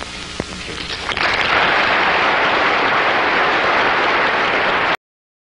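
Lecture audience applauding. The applause swells up about a second in, holds steady, and cuts off suddenly near the end.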